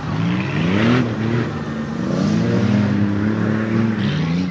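Several car engines revving and accelerating, their pitch climbing and dropping as the throttles open and close.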